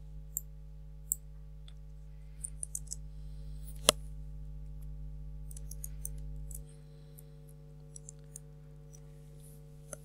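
Scattered computer keyboard keystrokes and mouse clicks, with one sharper click about four seconds in, over a steady low hum.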